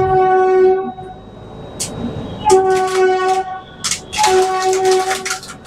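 Indian Railways locomotive horn sounding three times as the express pulls out of the station: a long blast that ends about a second in, then two shorter blasts of about a second each. Sharp clacks of the wheels over rail joints and points come between the blasts and grow more frequent near the end.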